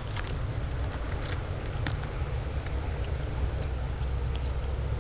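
A steady low rumble carries through. Over it come a few scattered faint clicks from a cat crunching dry kibble.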